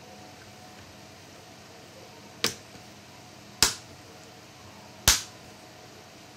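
Three sharp clicks a second or so apart, the last two loudest: small hard parts knocking or snapping during laptop disassembly.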